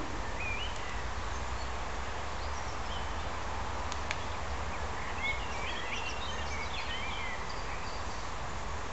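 Outdoor ambience: birds chirping in short bursts, about half a second in and again through the second half, over a steady hiss and low rumble, with a single sharp click about four seconds in.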